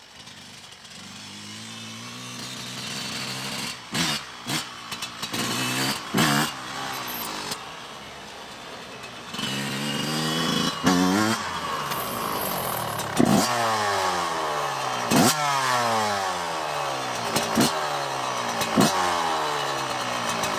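Yamaha YZ125 single-cylinder two-stroke dirt-bike engine running with vegetable oil in place of its oil, being revved in quick blips, each one's pitch falling back to idle between.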